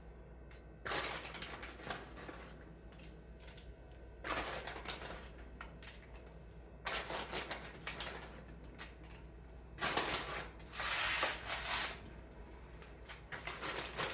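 Shredded cheese being sprinkled by hand onto eggplant slices, a rustling, pattering noise in about five short bursts with pauses between.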